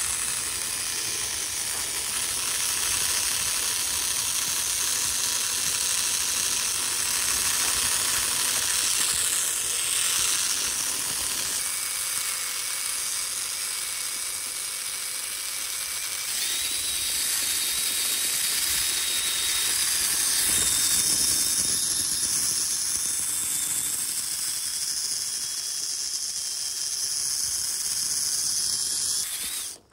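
Electric motor and gear drivetrain of a radio-controlled scale truck whining as it drives, with pitched whines that shift with speed over a steady hiss.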